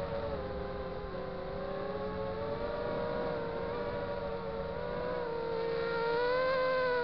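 FPV quadcopter's motors and propellers whining steadily in flight. The pitch drifts with the throttle, dipping slightly about a second in and rising about six seconds in.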